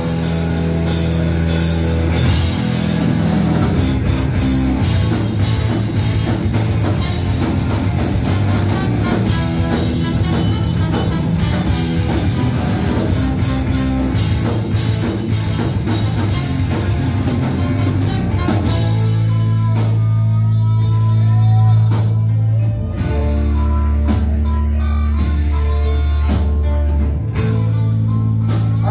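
Rock band playing live: drum kit and guitar over strong sustained low notes. About 19 seconds in, the dense full-band playing gives way to a sparser passage with fewer drum hits.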